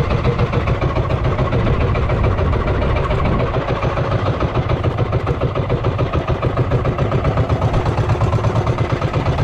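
Small outrigger fishing boat's engine running steadily under way while trolling, with an even pulsing beat.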